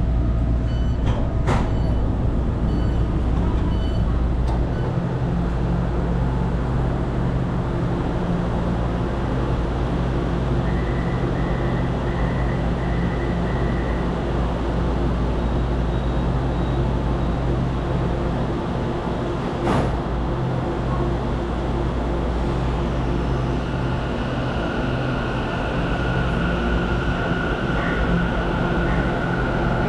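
Taichung MRT Green Line metro train standing at a station platform, its equipment humming steadily. A run of short beeps comes about a third of the way in and a single knock about two-thirds in. Near the end a whine rises in pitch as the train starts to pull away.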